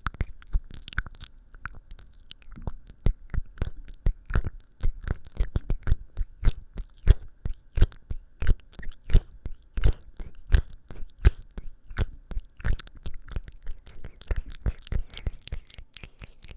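Close-miked ASMR mouth sounds: an irregular run of sharp, wet clicks and smacks, several a second.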